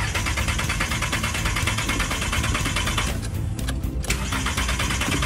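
Car engine cranking on its starter motor without catching, in two attempts with a pause of about a second between them: the engine turns over but won't start, a fault the mechanic suspects comes from a leaking canister purge solenoid valve.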